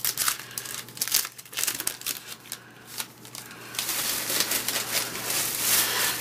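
Baseball card pack wrapper crinkling and cards being handled: irregular rustles and crackles, sparse at first and denser near the end.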